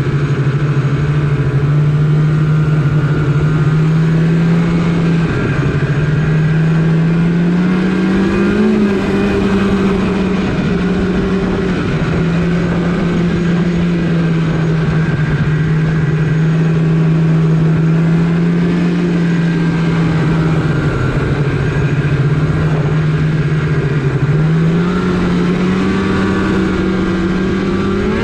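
Polaris RMK snowmobile engine running under steady throttle while riding. Its pitch dips and climbs back a few times, rising around a third of the way in and again near the end.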